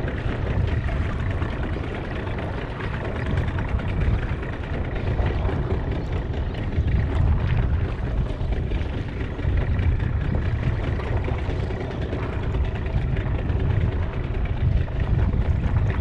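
Steady low rumble and rushing hiss of a boat on open water, with wind buffeting the microphone.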